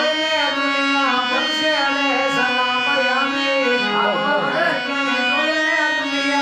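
Harmonium playing chords with a man singing over it in a sustained, ornamented melody.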